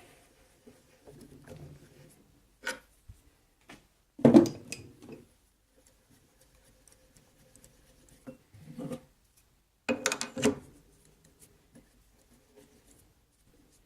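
Metal lathe tooling being handled: scattered knocks and clanks of steel parts picked up and set down, with rubbing and rustling between. The loudest clank comes about four seconds in with a short ring, and a quick run of clatters near ten seconds.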